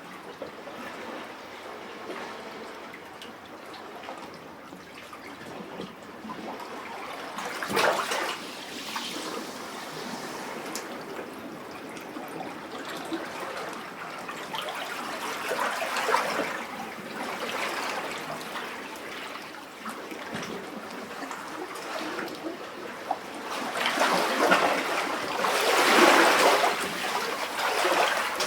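Sea waves lapping and sloshing in a rock cavity, with trickling and gurgling water and irregular surges as swells wash in, the largest near the end.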